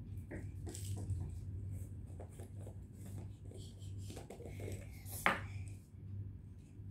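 Small jar with a red plastic lid being handled and opened by hand: light clicks and rubbing, with one sharp click about five seconds in. A low steady hum runs underneath.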